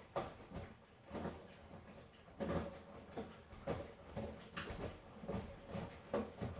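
Miele front-loading washing machine mid-wash: laundry tumbling in the turning drum, a soft thud or swish roughly once or twice a second at an uneven pace.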